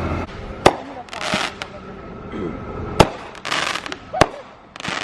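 Consumer fireworks going off: three sharp bangs, irregularly spaced, with short bursts of hissing between them.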